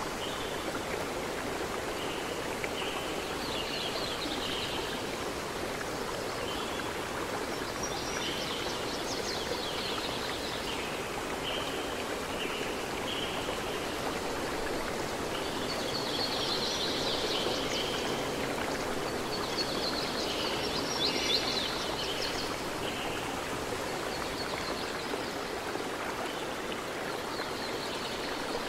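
Steady rushing of a stream with birds chirping over it in short clusters of high notes every couple of seconds, busiest past the middle.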